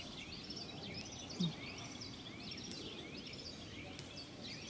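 Birds chirping and singing: many short repeated calls and quick rising whistles over a quiet steady background, with one brief low sound about one and a half seconds in.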